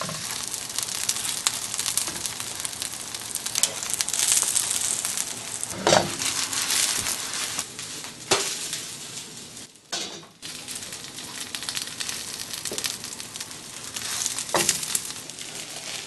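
Green onion pancake frying in hot vegetable oil in a non-stick pan, sizzling steadily after being flipped, with a few sharp knocks of a spatula against the pan. The sizzle dips briefly about ten seconds in.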